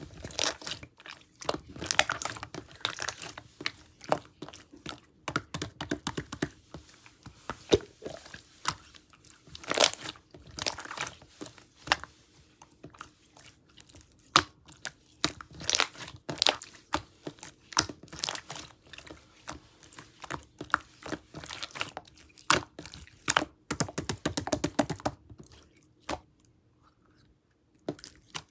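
Jelly slime being worked by hand, making irregular sticky crackling and clicking pops with squishes in between; it goes quiet for a couple of seconds near the end.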